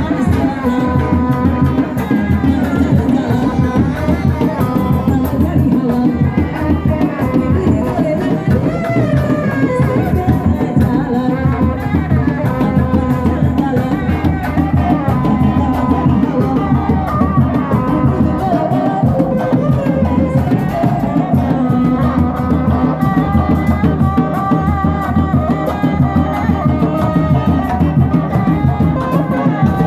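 Kuda lumping accompaniment music: hand drums (kendang) and gamelan percussion keep up a steady, dense rhythm, with a melodic line running over it.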